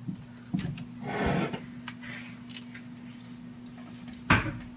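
Small metal parts and aluminium frame pieces being handled: scattered light clicks, a soft rustle about a second in and a sharper knock near the end, over a steady low electrical hum.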